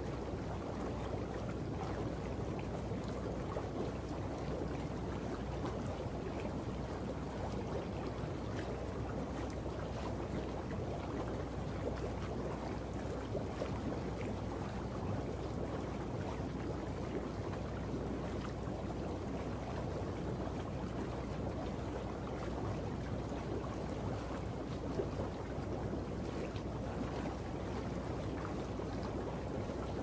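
Water boiling: steady, continuous bubbling with no pauses.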